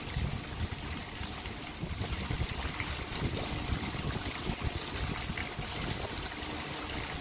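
Tiered stone fountain running, water splashing and trickling steadily into its basin.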